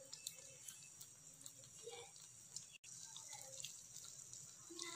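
Faint, steady sizzling of an egg omelette frying in oil in a pan, with scattered faint ticks. The sound cuts out for an instant a little before three seconds in.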